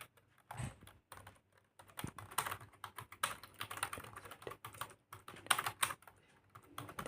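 Typing on a wired computer keyboard: a few scattered key clicks at first, then a quick, irregular run of keystrokes from about two seconds in.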